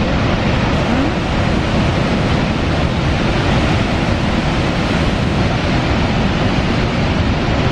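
Steady roar of Niagara Falls' plunging water, with wind buffeting the microphone.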